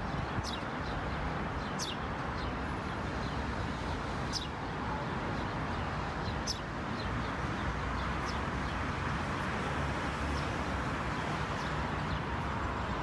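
Outdoor city ambience: small birds chirping in short, high, scattered calls, the clearest about two, four and six and a half seconds in, over a steady hum of street traffic.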